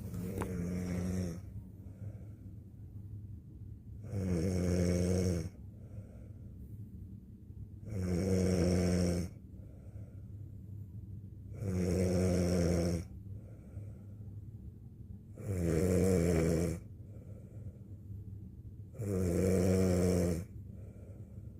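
A woman snoring in her sleep: a snore about every four seconds, each lasting over a second, with quieter breathing between.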